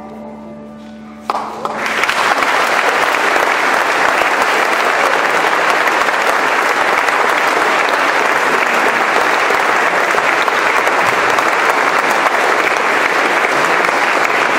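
A held final chord fades out, then audience applause breaks out just over a second in and carries on steadily.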